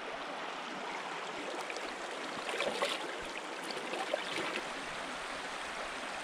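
River water flowing steadily, with a few light clicks about three and four seconds in.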